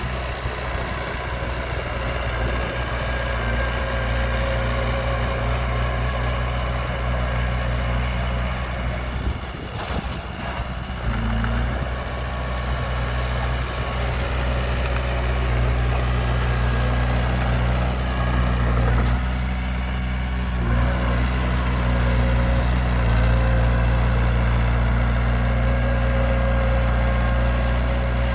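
Heavy diesel engine of construction machinery running steadily at low revs, with a brief change in its note about ten seconds in and a slightly louder run near the end.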